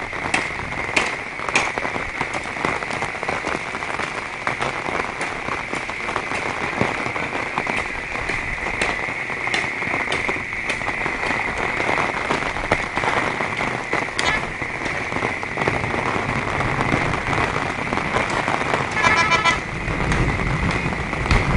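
Steady heavy rain falling and splashing on hard surfaces, with many close drops. Near the end a vehicle's low rumble comes in and a brief horn toot sounds.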